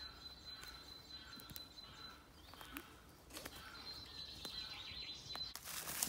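Quiet outdoor ambience with faint bird calls and a thin, steady high whistle that fades out and returns. Footsteps on the forest floor start near the end.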